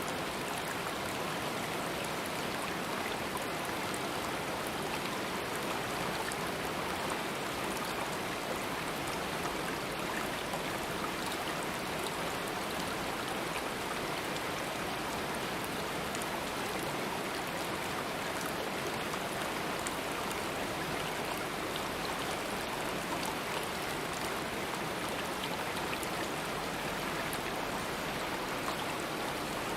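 Stream water flowing over rocks: a steady, unbroken rush with fine splashing.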